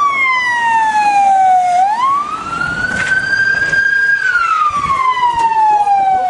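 Ambulance siren wailing: a pitch that falls slowly, sweeps back up quickly about two seconds in, holds high, then falls slowly again.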